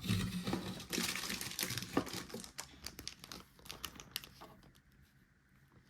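Plastic crinkling with small clicks and rubs as the nebulizer's plastic air hose and parts are handled and fitted. The handling sounds thin out over the last couple of seconds.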